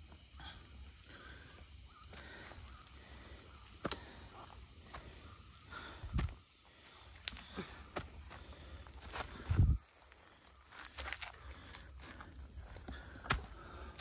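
Steady chorus of insects calling in the forest, with scattered footsteps crunching on dry leaf litter and a couple of heavier low thumps as hikers climb the steep trail.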